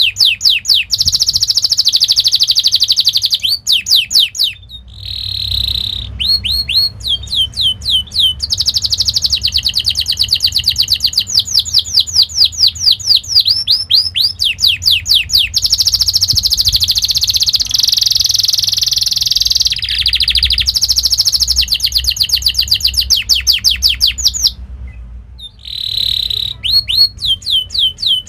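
Domestic canary singing a fast rolling song: long runs of rapid, repeated sweeping notes. There are two short breaks, about five seconds in and near the end.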